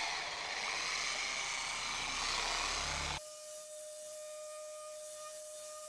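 Electric machine polisher running steadily on car paint, working deep scratches out. After about three seconds it cuts abruptly to a quieter, steady two-tone whine.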